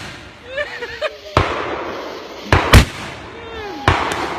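Consumer fireworks finale firing: four sharp bangs, the middle two close together, each followed by a trailing hiss.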